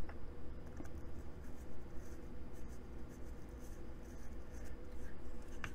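Hex driver turning an engine-mount screw: faint scratchy rubbing and light clicks over a low steady hum.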